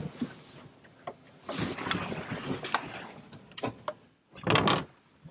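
NuCanoe Frontier kayak's plastic hull being slid down a rocky, muddy bank, scraping and knocking in short bursts, with the loudest scrape about four and a half seconds in.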